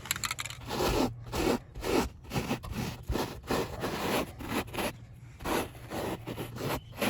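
Nylon brush scrubbing back and forth on automotive carpet, working freshly sprayed carpet dye into the fibres, at about two scratchy strokes a second with a short pause about five seconds in.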